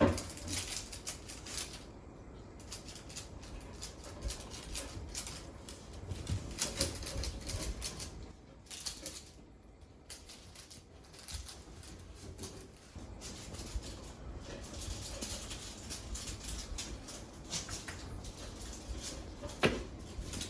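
A cat moving about, with light, irregular pawsteps, scuffs and rustles on the floor and a sharp click about a second before the end.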